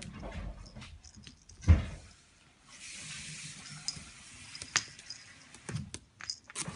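A kitten scuffling with a fluffy pompom toy on a string in a wicker basket on a wooden floor: rustling, scratching and light knocks of the basket. There is one heavy thump about two seconds in, then a few seconds of steady hissing rustle.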